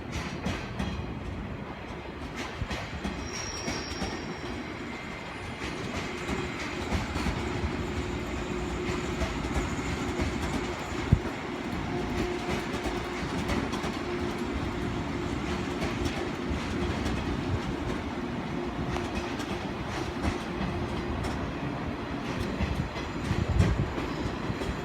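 Japanese passenger train running on the rails: wheels clicking over rail joints above a steady rumble, with a faint steady hum.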